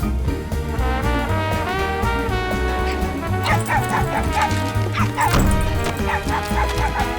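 Background film music with a steady bass line, and a dog barking and yipping several times over it from about three and a half seconds in.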